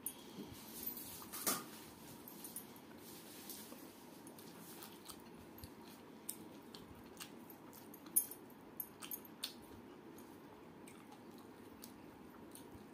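Close-up eating sounds of pakhala, water-soaked rice eaten by hand: chewing and mouth smacks, with wet squishing as the fingers work the rice. Scattered light clicks, the sharpest about a second and a half in and about eight seconds in, as from glass bangles knocking together.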